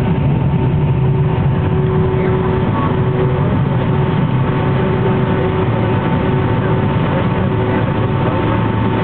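Boeing 767-300's jet engines running, heard inside the cabin by the wing: a steady, loud rumble with two thin, steady whining tones on top.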